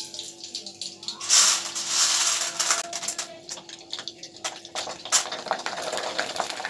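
Sago pearls (sabudana) sizzling in hot oil: a strong hiss builds about a second in, then settles into scattered crackles and pops as the pearls puff up.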